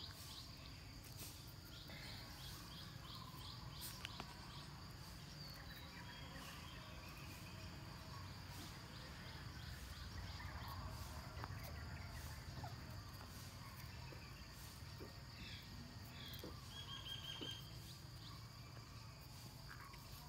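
Quiet outdoor ambience: a steady high-pitched insect drone, with a few short bird chirps and soft scattered clicks.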